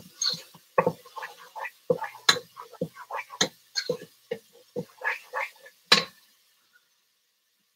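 Spoon stirring chopped onions sautéing in olive oil in a pot: a quick run of irregular knocks and scrapes against the pot over a faint sizzle. The stirring stops suddenly about six seconds in.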